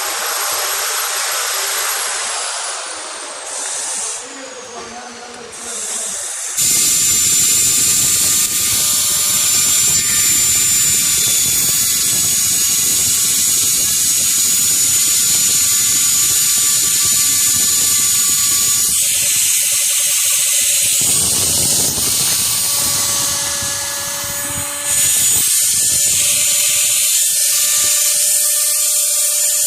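Small 3-axis CNC milling machine's motors running, a steady electric whine that starts up suddenly about six seconds in, its pitch shifting slightly later on.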